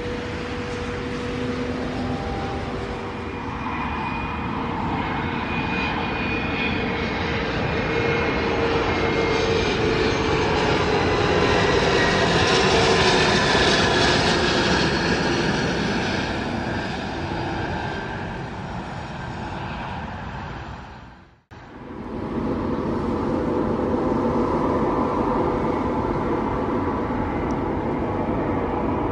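Business jet on final approach passing overhead: its turbofan whine and rush grow to a peak about halfway through, then fade, the tones falling in pitch as it goes by. After an abrupt cut near the end, a steady jet drone from a Boeing 787-9 approaching head-on.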